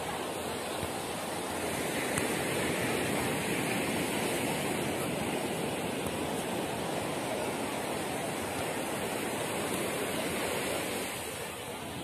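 Ocean surf breaking on a sandy beach: a steady wash that swells a little and eases near the end.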